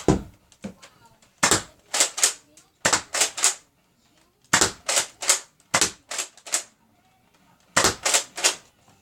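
Quick runs of sharp clicks, three to six at a time and about three a second, with short pauses between the runs.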